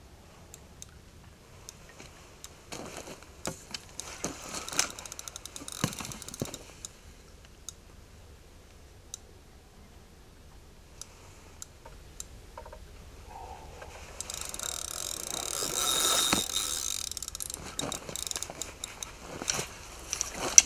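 Fishing reel clicking and whirring in bursts while a hooked carp is played on rod and reel. A longer, louder burst of noise comes about two-thirds of the way through.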